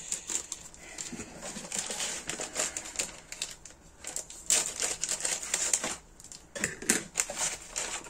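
Crinkling and rustling of thin plastic packaging as plastic model-kit sprues are handled and pulled out, in irregular bursts with louder rustles about halfway through and near the end.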